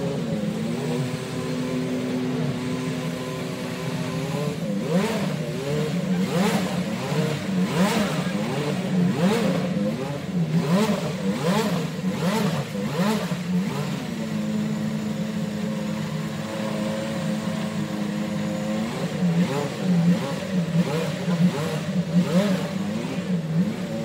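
Indy car race engines running on the grid, their throttles blipped again and again so the pitch jumps up and falls back, with steadier idling stretches; the blipping is busiest from about 5 to 13 seconds in and picks up again near the end.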